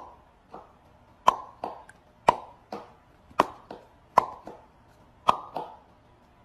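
A series of sharp pops or clicks, a louder one about once a second and often a softer one just after it, each with a brief ring.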